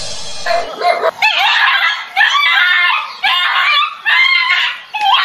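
An animal crying out in about four short, high-pitched calls that bend in pitch, following a brief noisy rustle at the start.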